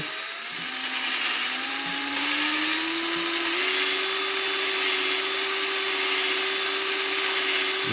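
Electric drill running, its motor whine rising in pitch over the first few seconds and then holding steady, as it spins an engine valve against its seat in the cylinder head. Under the whine, a gritty grinding of the valve lapping on the seat with grinding compound.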